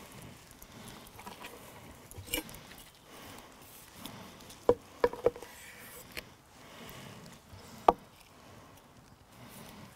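Knife cutting through the crisp crust of a rolled roast and tapping the wooden cutting board, with a few sharp knocks: one about two seconds in, a quick cluster around five seconds, and one near eight seconds.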